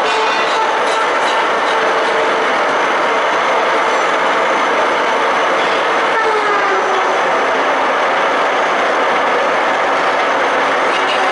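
TOS SKJ-8 CNC vertical turning lathe running: a steady, loud mechanical noise with whining tones over it. The tones drop a little in pitch about six seconds in.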